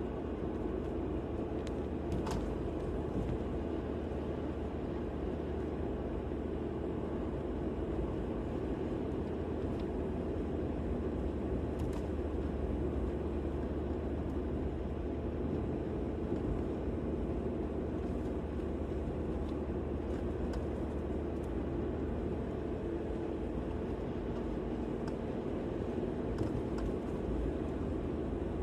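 Steady, even vehicle rumble of road and engine noise, heaviest in the low range, with a few faint ticks.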